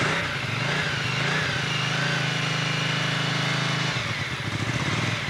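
Honda 550 motorcycle engine running just after starting from cold, on the choke. It picks up speed about half a second in, holds there, and drops back to a lower speed about four seconds in.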